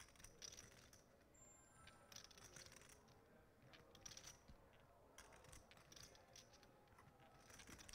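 Near silence broken by faint, scattered clicks and clatters of clay poker chips being handled at the table.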